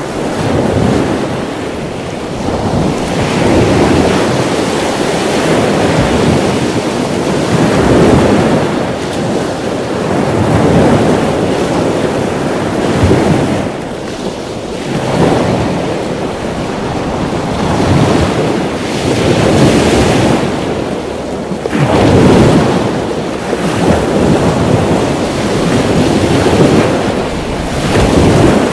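Wind buffeting an action camera's microphone while water rushes and sprays past a kiteboard skimming choppy sea, swelling and easing about every three seconds.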